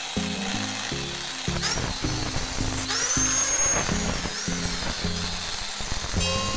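Background music over a handheld electric angle grinder cutting into the steel hub of a spoked wheel. The grinder's high whine rises in pitch a couple of times.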